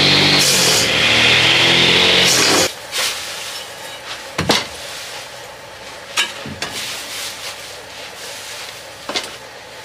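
A motor-driven grass chopper running loudly while grass is fed in, cutting off suddenly a little under three seconds in. Then a hoe scraping and raking the chopped grass, with a few sharper scrapes among soft rustling.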